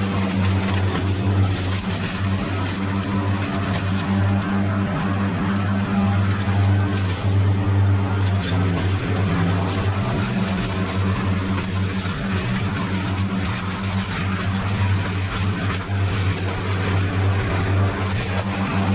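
Lawn mower engine running steadily under load, a constant low drone.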